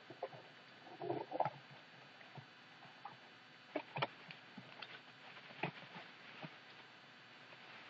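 Faint handling noise from a package being opened: scattered light clicks and short rustles, with a small cluster about a second in and a few sharper ticks around four and five and a half seconds.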